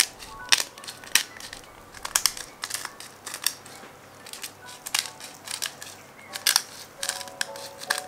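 Pepper mill grinding black pepper: crisp crunching clicks in irregular short bursts, roughly two a second.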